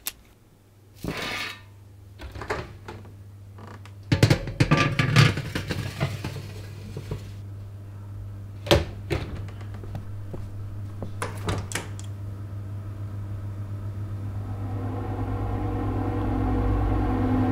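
Electric oven knob turned with a click, then the oven runs with a steady low hum, with scattered clicks and ticks. In the last few seconds a low rumbling drone swells steadily louder.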